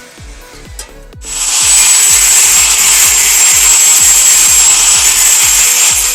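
Angle grinder grinding the sheet metal of a motorcycle fuel tank: a loud hissing grind with a steady high whine that starts about a second in and stops near the end.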